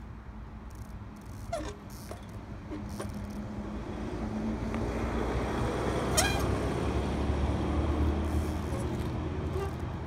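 A bus passing on the road, its engine rumble building from about four seconds in and strongest near the end. A few short squeaks and one sharp click come from the trials bike as it is hopped and balanced.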